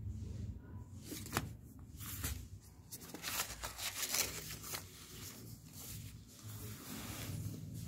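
Rustling and crackling of a folded card fabric tag and cashmere cloth handled by hand close to the microphone, with a busy run of sharp crackles in the middle few seconds that then eases off.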